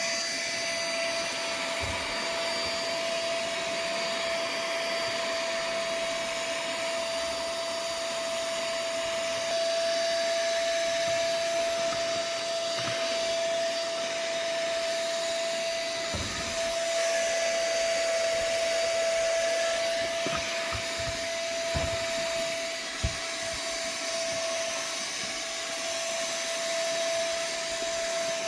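Anko B-865 cordless handheld vacuum cleaner running steadily: one constant whine over a rush of air, with a few light knocks in the second half.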